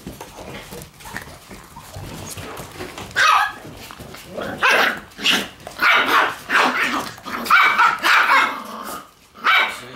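Shiba Inu puppies barking while they play-fight: a quick run of short, high barks and yaps starting about three seconds in and stopping shortly before the end.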